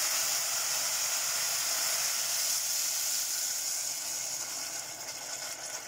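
Water sizzling and hissing in a pot of hot oil and spiced squash cubes just after it has been poured in, slowly dying down.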